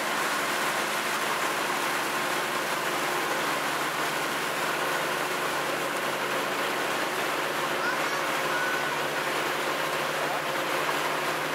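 Steady drone of a motorboat's engine under way, mixed with rushing water and wind noise on the boat.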